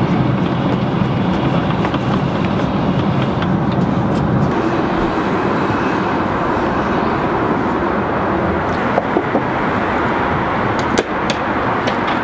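Steady cabin noise of an Airbus A380 airliner in flight, the constant rush of engines and air flow, its low rumble easing about four seconds in. A few light clicks near the end.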